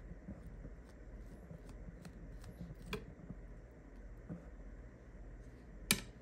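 Soft handling of a peeled eggplant and a knife on a plastic cutting board as the eggplant is butterflied open: faint scattered clicks, a sharper click about three seconds in and a louder knock near the end, over a steady low hum.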